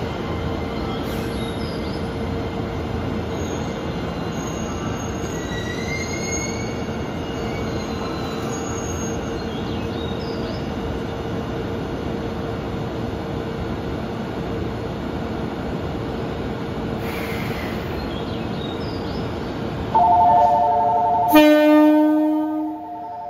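Steady rumble of a JR East 651 series electric express standing at the platform, then about 20 seconds in a loud air-horn blast that runs straight into the train's electronic music horn playing a short melody, sounded together for departure.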